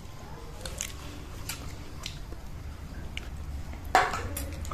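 Faint eating sounds: a few small clicks, then a louder brief noise about four seconds in as a hand digs into a steel bowl of chicken meat.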